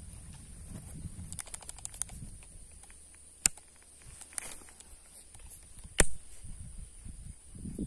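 Baitcasting reel and rod being handled: rustling, then a quick run of light clicks a little over a second in, then two sharp clicks about two and a half seconds apart, the second the loudest, over a steady high-pitched whine.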